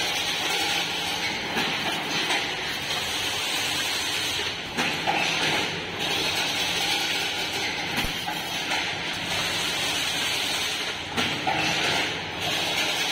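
Single-wire chain link fencing machine running, twisting wire into mesh: a steady mechanical clatter and hiss that swells and eases every few seconds as the machine cycles.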